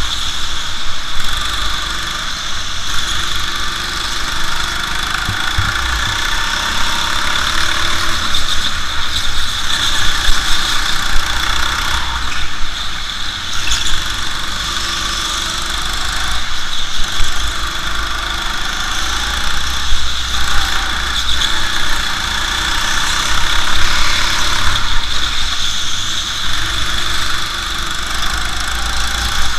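Go-kart engine running at speed as the kart laps the track, heard from onboard, its level rising and falling through the lap.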